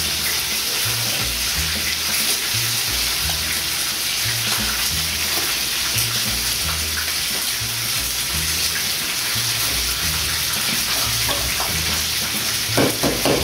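Steady sizzle of chicken thighs frying in olive oil in a pan, under background music with a repeating bass line. Near the end, a quick run of knife knocks on a cutting board begins.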